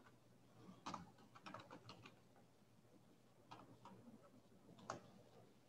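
Faint computer keyboard typing: short runs of key clicks with pauses between them, and one sharper keystroke near the end.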